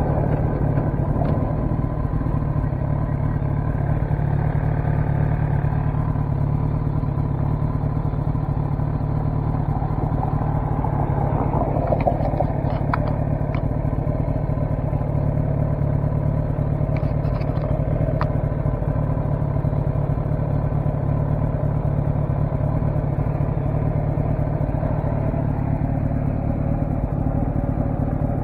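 Kawasaki ZX10 sportbike's inline-four engine running steadily at low revs, with little wind noise, and a few faint clicks around the middle.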